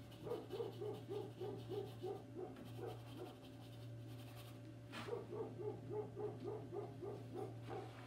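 A dog barking in a quick, even run of about four barks a second, breaking off for about two seconds in the middle, then starting up again.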